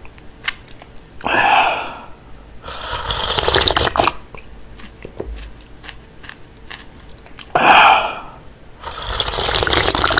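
Close-miked mouth sounds of a person drinking cold udon broth straight from the bowl: two long noisy slurps, each following a short, louder mouth sound by about a second.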